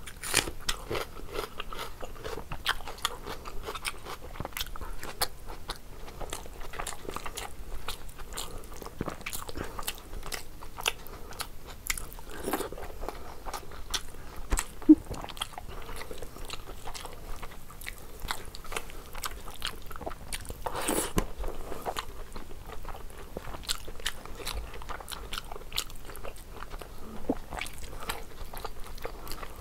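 Chewing and wet mouth smacks of a person eating rice and curry by hand, with many small clicks throughout. Near the end, fingers squish and mix rice on the plate.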